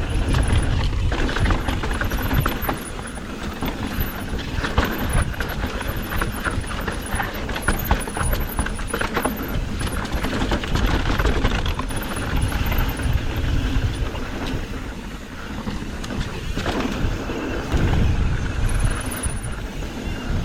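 Mountain bike descending a rough dirt trail: wind rumbling on the microphone, tyres rolling over dirt and rocks, and the bike rattling with many short knocks over the bumps.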